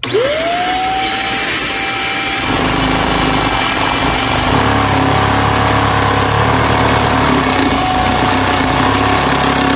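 Vacuum cleaner motor switching on and spinning up with a quickly rising whine, then running steadily, its suction driving a Lego Technic vacuum engine. A lower rumble joins about two and a half seconds in and grows stronger at about four and a half seconds.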